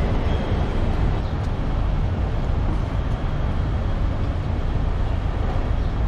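Steady low rumble of a large vehicle running.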